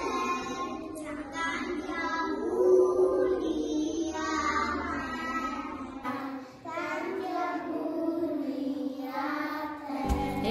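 A group of young children singing together, with a brief break about six seconds in before the singing goes on.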